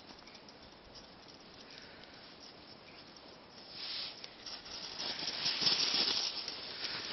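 Footsteps crunching through snow on a walk: faint at first, then louder scraping and crunching from about four seconds in.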